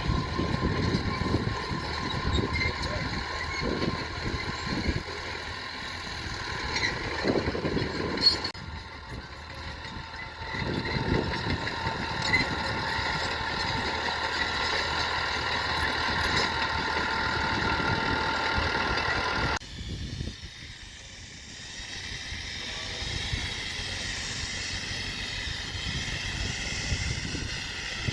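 Heavy construction machine's diesel engine running, with a steady whine and irregular low knocks; the sound changes abruptly twice.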